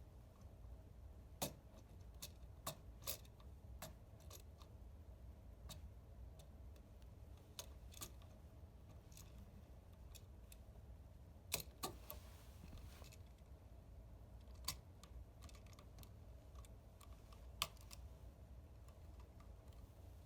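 Scattered light clicks and small metallic ticks of a bare copper ground wire being hooked onto an electrical outlet's green ground screw and the screw tightened with a screwdriver, over a faint steady low hum.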